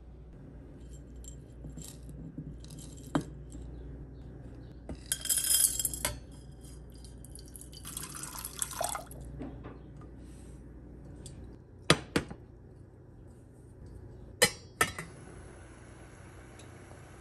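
Kitchen handling sounds around a stainless steel saucepan: dried cloves tipped in with a rattle about five seconds in, then water poured onto them from a glass about eight seconds in. Sharp clinks and knocks of glass or pot follow, twice, and a faint steady high tone starts near the end.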